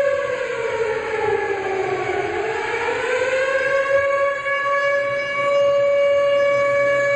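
Sirens wailing to mark the minute of silence for Atatürk. One holds a steady pitch while a second falls in pitch about two seconds in and rises back a couple of seconds later.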